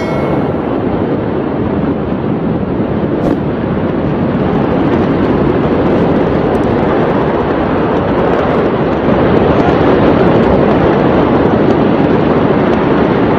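Steady, loud rushing noise with no distinct events, growing slightly louder about nine seconds in.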